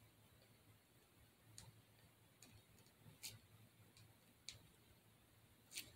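Near silence: room tone with a faint hum and a few faint, scattered clicks, about one every second or so.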